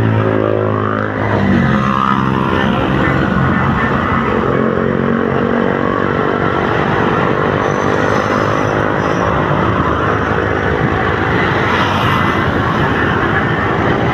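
Basuri multi-tone bus horn playing a tune of held tones that change pitch in steps, over a running bus engine.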